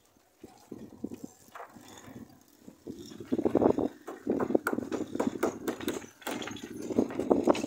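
Rapid, irregular knocking and clattering of a tool working the wooden planking of a boat hull, starting about three seconds in and going on in short runs with brief pauses.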